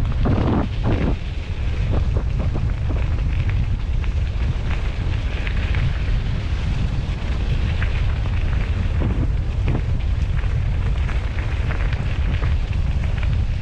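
Steady, loud wind buffeting on the microphone: a dense low rumble with a few faint bumps.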